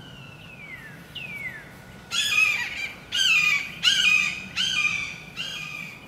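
A young hawk calling: five loud, harsh, down-slurred screams about a second apart. Before them come two thin whistles falling in pitch.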